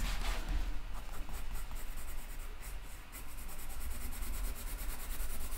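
Coloured pencil scratching in quick back-and-forth strokes under heavy pressure on textured drawing paper: burnishing, laying dense colour to flatten the paper's tooth.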